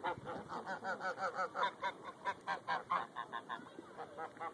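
Greylag geese honking in a rapid series of short calls, about four or five a second, that stop just before the end.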